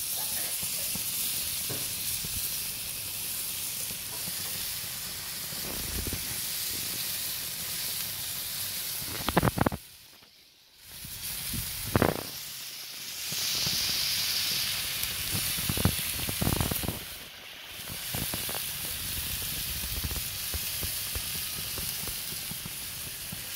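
Two steaks sizzling on a ridged griddle plate on a gas barbecue grill, a steady high fizzing hiss. The sound drops away briefly about ten seconds in and again later, with a few knocks in between.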